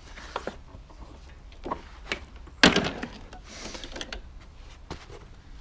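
Mountfield HP46R push mower being set back down onto its wheels: one sharp thump about two and a half seconds in, the loudest sound, among lighter knocks and a short rustle.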